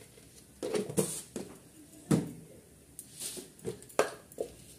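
A string of short, irregular knocks and clinks of kitchen utensils on cookware, about nine in all, the loudest about a second in, two seconds in and near the end.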